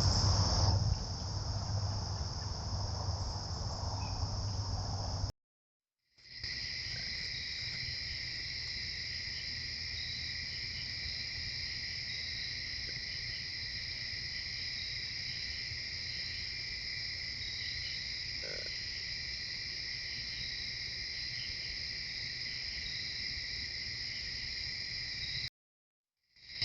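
Insect chorus of crickets: a steady, unbroken trilling at two high pitches. It is cut off to silence twice for about a second at clip changes. Near the start, a louder rustling and low rumble sit under it.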